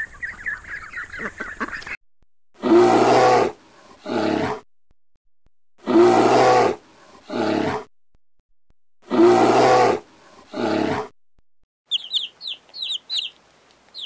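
Ducklings peeping briefly. Then a black bear's low call sounds three times, each time a long call followed by a shorter one, the same pair repeated. Baby chicks peep in high chirps near the end.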